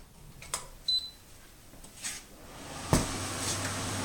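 Soleusair dehumidifier starting up: a short electronic beep about a second in, a few light clicks, then a sharper click near three seconds, after which the unit settles into a steady low hum.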